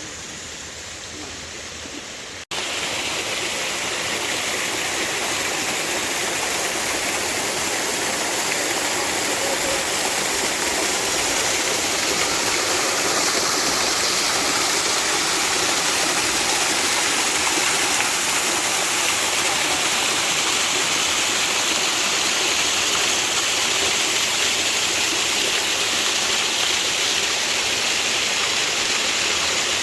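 Steady rush of flowing water, such as a stream or waterfall, that jumps louder at an abrupt cut about two seconds in.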